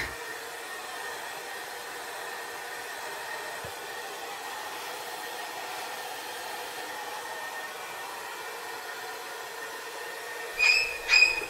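Steady whirring hum of a running household appliance. Near the end, short high squeaks begin, two of them about half a second apart.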